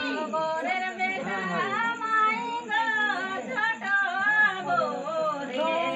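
A woman's voice singing unaccompanied, in long held notes that bend up and down.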